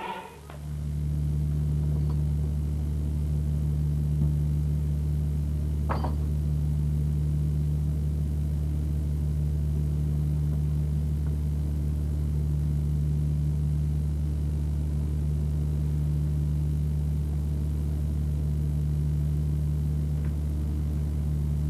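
Fishing boat's engine running with a steady low drone at constant speed, starting about half a second in. A single brief click about six seconds in.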